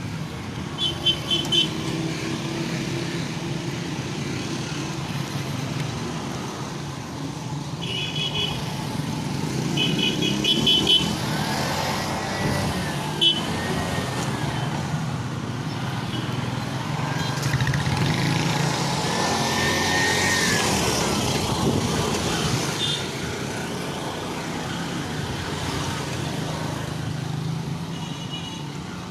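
Street traffic: cars and motorcycles passing with a steady rumble that swells as vehicles go by, and short horn toots a few times.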